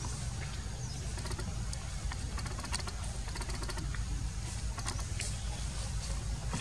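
Steady low rumble with scattered faint clicks and crackles, irregular and close together through the middle of the stretch.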